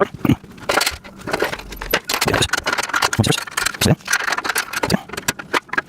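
Metal rack parts and small screws and nuts clinking and rattling as they are handled and fitted together, in irregular clicks and knocks.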